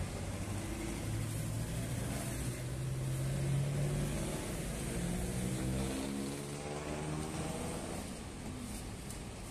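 Road traffic: a vehicle engine hums steadily, then rises in pitch as it accelerates from about five seconds in, easing off near the end.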